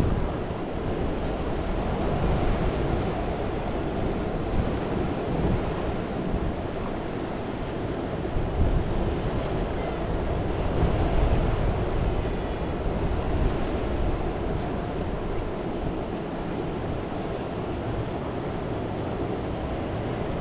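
Steady rush of a fast-flowing river's current, with wind rumbling on the microphone.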